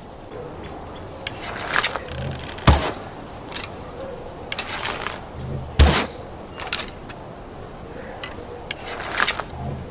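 Bow-and-arrow sound effects repeated three times: each is a short swish of an arrow in flight, then a sharp thunk as it strikes, with small ticks and creaks in between.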